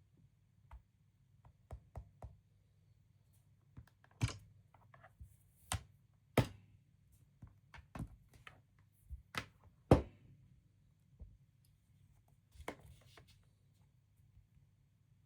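Irregular knocks and taps, about fifteen of them, the loudest about four, six and a half and ten seconds in, over a faint low hum.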